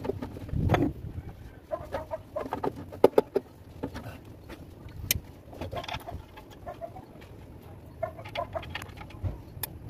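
Chickens clucking in short, repeated calls, with a few sharp metal clicks from a wrench on the clutch pressure-plate bolts.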